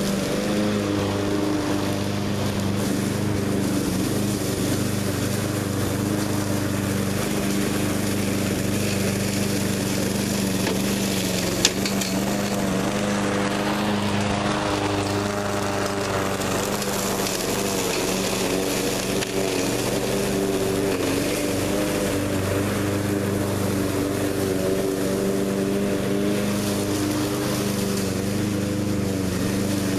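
Troy-Bilt TB360 walk-behind lawn mower engine running steadily under load as it mulches and bags thick dry leaves, its pitch wavering slightly. There is a single sharp click about twelve seconds in.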